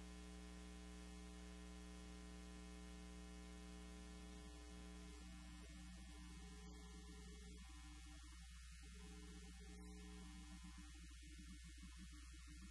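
Faint, steady electrical mains hum with a low buzz and its overtones, unchanging throughout.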